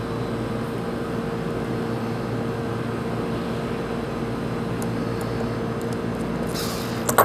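A steady machine hum in the room, even and unchanging, with a few faint small ticks about five seconds in as a precision screwdriver works the watch's case-back screws, and a short rustling scrape near the end.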